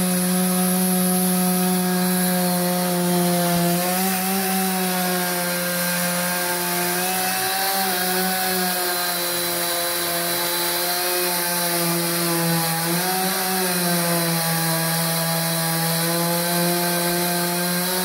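Gas chainsaw running steadily under load, its chain cutting down into a large eucalyptus log in a vertical plunge cut through a homemade Alaskan chainsaw mill. The engine note holds steady, sagging briefly a few times as the cut loads it.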